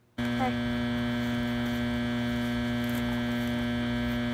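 Loud steady electrical hum made of many stacked tones, cutting in abruptly a fraction of a second in and holding unchanged. It is audio trouble that the uploader blames on a broken generator.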